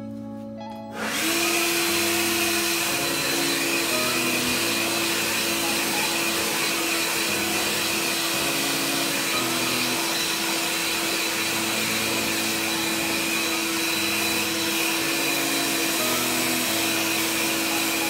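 Worx Turbine 20V cordless leaf blower switching on about a second in and running steadily, a rush of air with a steady whine, as it blows water off a freshly washed RC car.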